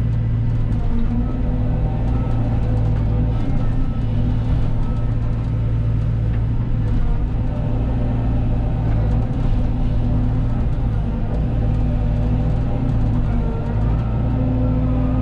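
Cat 313 excavator's diesel engine running steadily under load as it digs, its pitch shifting a little now and then as the hydraulics work, with faint scrapes and clicks from the work.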